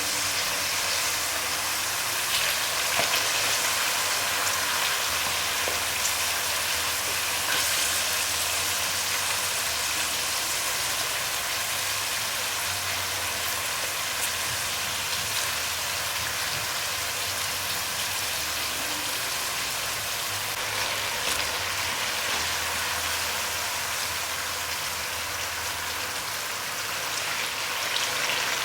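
Sweet potato slices frying in hot oil: a steady sizzle with fine crackling.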